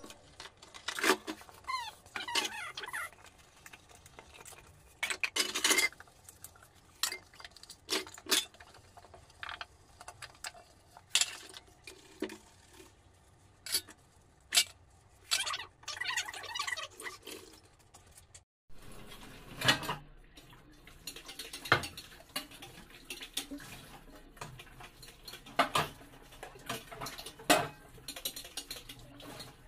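Stainless steel bowls, a steel colander and ceramic bowls clinking and clattering against each other as dishes are washed by hand and stacked at a sink, in quick irregular knocks.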